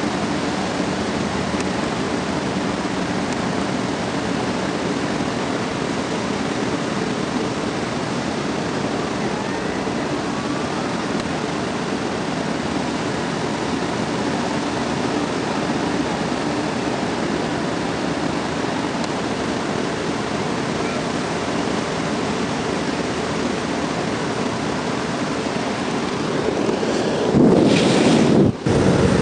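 Steady wash of ocean surf breaking on the beach, mixed with wind on the camcorder microphone. About 27 s in there is a louder rustling burst as the camcorder is handled and something covers the lens, then the sound cuts out for an instant.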